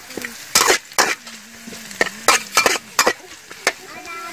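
Metal wok spatula scraping and clacking against an aluminium wok while chopped garlic and chilli are stir-fried in oil, with a light sizzle underneath. The strokes come irregularly, about a dozen in uneven clusters.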